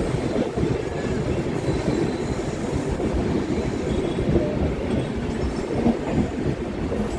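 Passenger train running slowly, heard from inside a coach at an open window: a steady rumble of wheels on the rails with irregular clacks.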